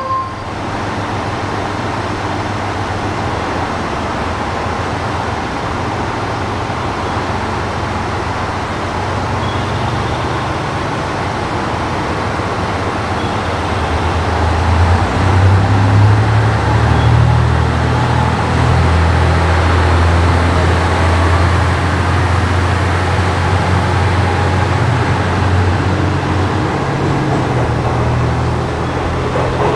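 Diesel railcar engine running at a station platform, with a steady low rumble that grows stronger about halfway through as the railcar powers up to pull out.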